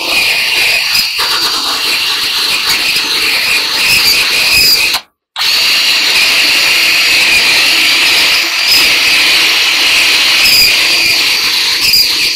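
A 20-volt cordless drill boring into the dryer's sheet-steel panel with a loud, high-pitched squealing that hurts the ears. It stops briefly about five seconds in, then starts again.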